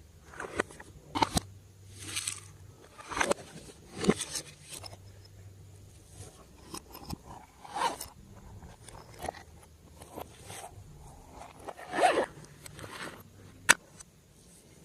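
Glossy slime being worked by hand: irregular short sticky crackles and squelches, with a few sharp pops as it is pulled and pressed.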